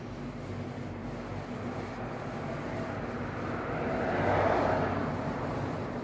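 Steady background noise with a low hum; a rushing sound swells and fades about four seconds in.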